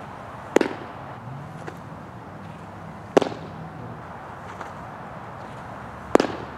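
Three sharp pops of a baseball smacking into a catcher's mitt, spaced about three seconds apart, over a steady outdoor background.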